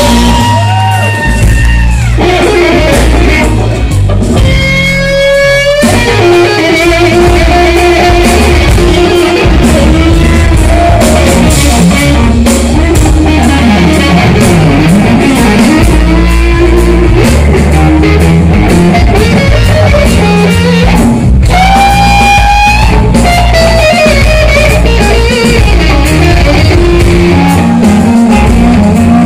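Live rock band led by an electric guitar through an amplifier, playing bluesy lines with sliding and bent notes over a heavy, steady bass.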